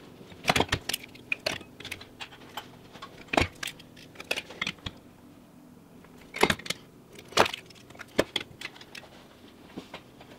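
A torque wrench and socket tightening the housing bolts of a Sachs KM24 Wankel rotary engine to 6 foot-pounds. Scattered metallic clicks and clinks, a few of them sharper and louder.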